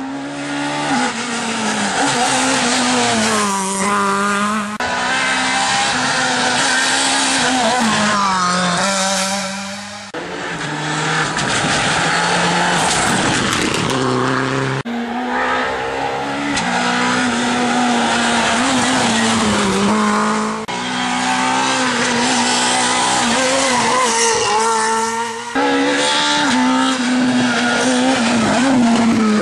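Rally car engines revving hard and changing gear as cars take bends one after another, the sound breaking off suddenly every few seconds as one car gives way to the next.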